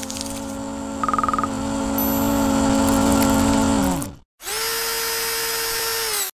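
Synthesized logo-intro sound effects. A hum swells, with a brief fast rattle about a second in, then drops in pitch and stops about four seconds in. A steady buzzing tone follows and cuts off suddenly.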